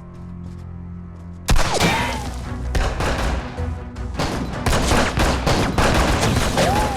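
Tense drama-score music. About a second and a half in, a sudden volley of gunfire breaks out and keeps going in rapid, uneven shots over the music.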